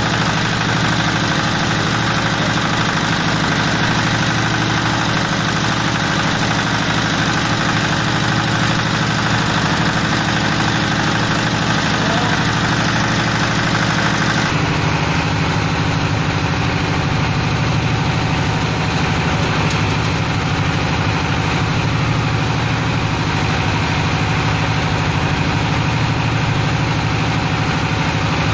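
Fish-feed processing machine running steadily with a continuous mechanical drone. About halfway through, the sound changes abruptly to a slightly different, duller running sound.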